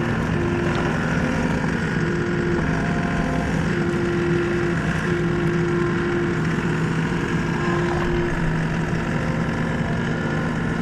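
Motor vehicle engine running steadily, a continuous drone with a steady low hum.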